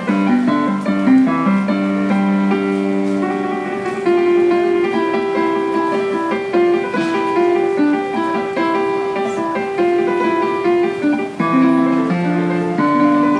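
Portable digital piano played with both hands: a steady run of many quick notes in a flowing tune.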